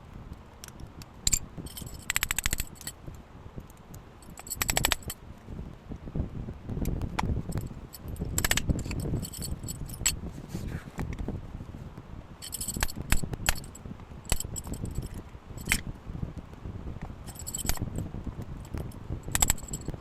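Small metal parts clinking and jangling in short bursts a few seconds apart, among clicks, knocks and scraping from handling.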